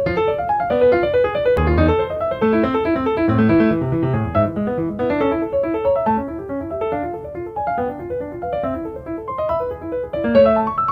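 Background music: a solo piano playing a busy run of quick notes, with a deep bass note struck about one and a half seconds in.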